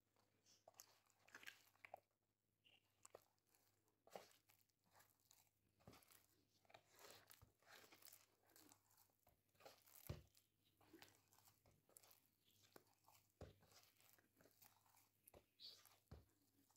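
Faint, irregular sticky squishes and crackles of a hand kneading stiff flour dough in a plastic tray, with one louder knock about ten seconds in.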